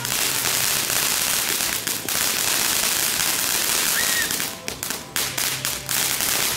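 Ground fountain fireworks spraying sparks with a steady loud hiss. About four and a half seconds in, a run of sharp cracks and pops breaks into the hiss.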